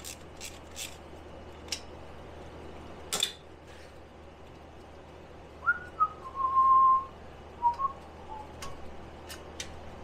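A person whistling a short run of notes, one held for most of a second, about six seconds in. Before it come a few ratchet clicks and a single sharp metal knock.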